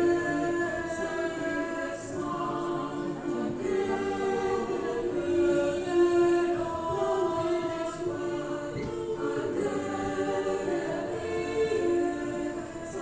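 Choir singing, holding long chords that change every second or two.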